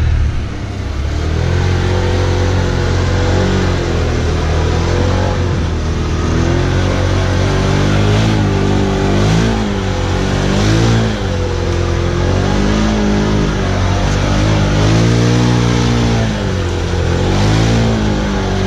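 Can-Am Defender XMR side-by-side's V-twin engine revving hard, its pitch climbing and dropping every second or two as the throttle is worked while it slides in circles through loose sand and dirt.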